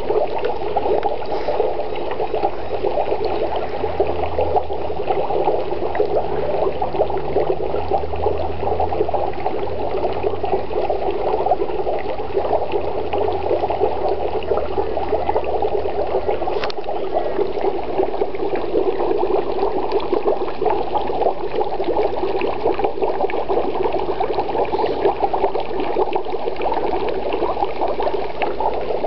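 Dry ice bubbling in a bucket of water: a steady, rapid, crackly bubbling and gurgling as the gas escapes.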